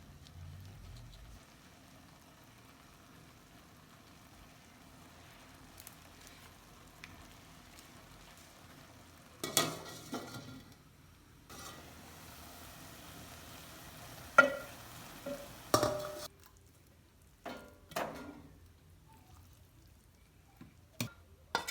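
Faint steady sizzling hiss, then a series of sharp clinks and knocks of utensils or dishes from about ten seconds in.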